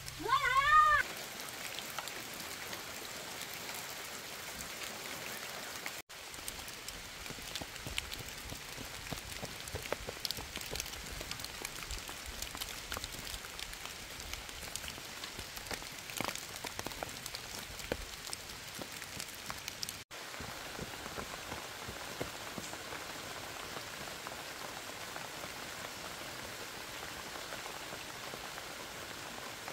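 Steady rain pattering on a surface, an even hiss dotted with many small drop ticks.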